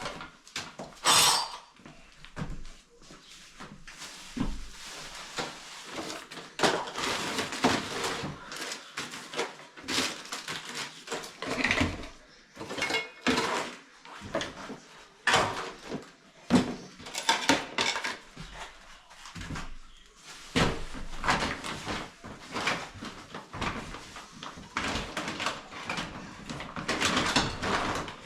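Irregular knocks, clinks and scraping from tools and fittings being handled during bathroom installation work in a small room.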